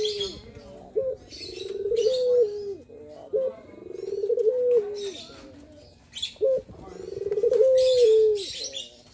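Male ringneck dove (Barbary dove, the Indonesian 'puter') cooing its manggung song. A short note leads into a long, rolling coo that drops in pitch at the end, repeated three times.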